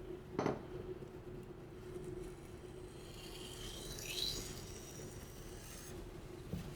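Steel knife blade scraping across a wet whetstone in sharpening strokes: a brief knock about half a second in, a thin high scrape with a rising edge in the middle, and a small click near the end.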